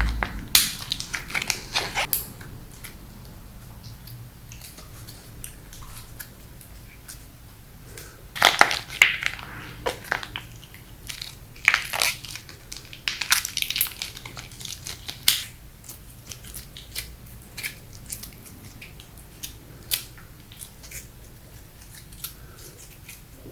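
Slime being squeezed and mixed by hand, making irregular popping, crackling clicks. The loudest runs of pops come about a third of the way in and again around the middle.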